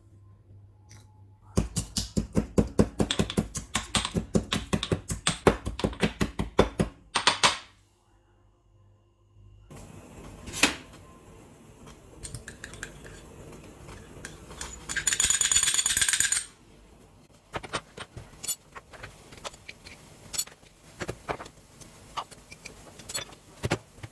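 Kitchen prep: a kitchen utensil strikes hard and evenly, about four times a second for some six seconds, then gives scattered clicks and knocks, with a short hiss about fifteen seconds in.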